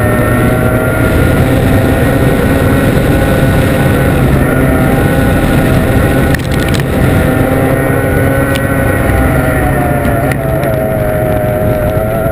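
Formula 1 tunnel boat's racing outboard engine running at high revs, heard on board as a loud, steady high-pitched note over wind and water noise. About six seconds in the note briefly drops and crackles, and near the end its pitch wobbles for a moment.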